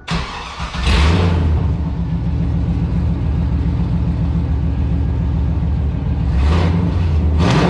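A 2002 Camaro Z28's LS1 V8, with long-tube headers and the muffler cut off, starts up, flares loudly about a second in, then idles with a deep rumble. It is revved twice in quick succession near the end.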